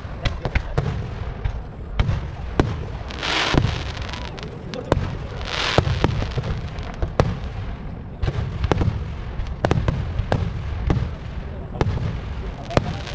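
Aerial firework shells bursting in a temple-festival fireworks display: many sharp bangs in quick, irregular succession over a continuous low rumble. Twice, a few seconds in, there is a short hissing swell.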